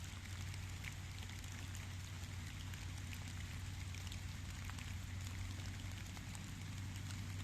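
Steady rain falling, with many small drop taps over an even hiss and a steady low hum underneath.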